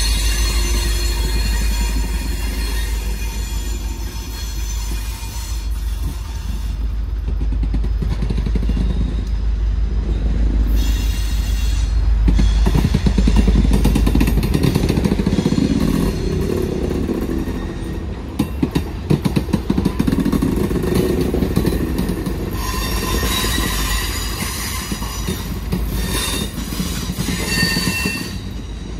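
Passenger cars of a train rolling past close by: a steady rumble of wheels on rail, with high-pitched wheel squeal at the start, briefly near the middle and again near the end. A run of sharp clicks comes about two-thirds through.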